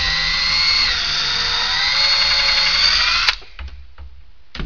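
Cordless drill running under load into the wooden arm of the chair. Its pitch dips about a second in and climbs back, and it stops abruptly a little over three seconds in. A short sharp knock follows near the end.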